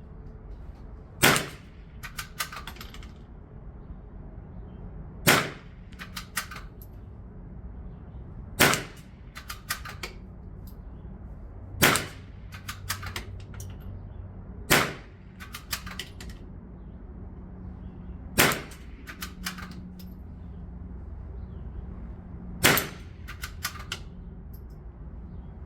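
.22 LR gunshots fired at steel targets: seven sharp cracks spaced three to four seconds apart, each followed about a second later by a few fainter clicks.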